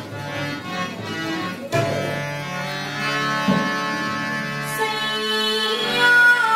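Rajasthani folk music of sarangi and tabla: a sustained bowed melody over a few tabla strokes, with a note that slides up and down near the end.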